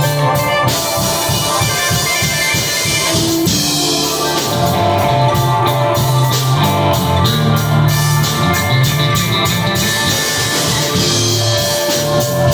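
Loud live jam-session music, with a drum kit and sustained pitched notes.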